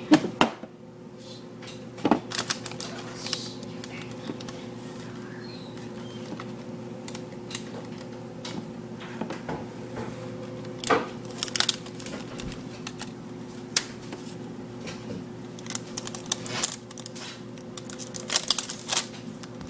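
Scattered clicks, taps and knocks of things being handled in a kitchen, bunched more closely near the end, over a steady low electrical hum.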